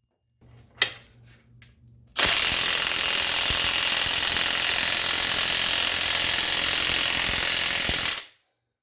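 A few light metal clicks as a socket is seated, then an impact wrench hammering continuously for about six seconds on the nut of a bolt-and-pipe puller, stopping suddenly near the end. The seized bottom bracket cup does not break free under it.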